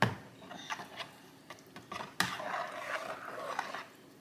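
Wire potato masher squishing and sloshing through soupy cornbread dressing in a roasting pan, with a sharp knock at the start and a longer wet churning stretch about two seconds in.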